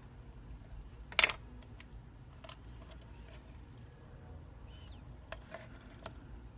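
Small hard parts or tools clicking and tapping on a work surface during a phone repair, with one louder clatter about a second in and a few light ticks after.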